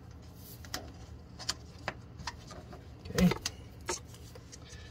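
Hands wrapping plumber's tape onto a brass threaded fitting: a few scattered light clicks and rubbing sounds, with one louder thump about three seconds in.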